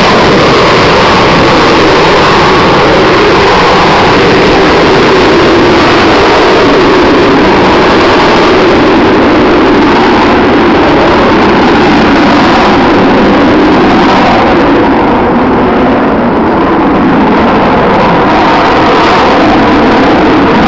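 Avro Vulcan delta-wing bomber in a low display pass, its four Olympus turbojets loud and steady overhead. The sound eases slightly about two-thirds of the way through, then comes back up.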